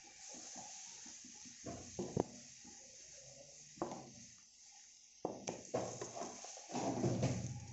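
A spatula stirring grated bottle gourd simmering in milk in a pan: irregular scrapes and a few sharp knocks against the pan, over a faint steady hiss from the bubbling milk, with a louder stretch of scraping near the end.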